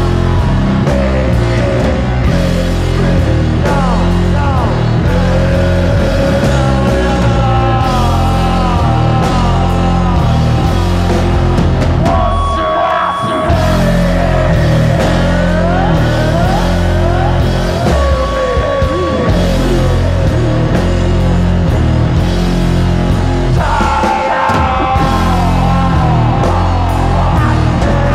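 Loud rock music with a steady beat; the bass and drums drop out briefly about halfway through.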